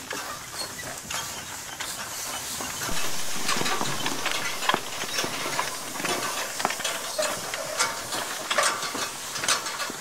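Horse-drawn side-delivery hay rake running through dry hay: its tine bars rattle and clatter over a steady hiss, getting louder about three seconds in.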